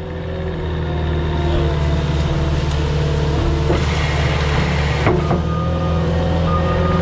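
A heavy vehicle's engine running steadily under load, with a back-up alarm beginning to beep in slow pulses about five seconds in.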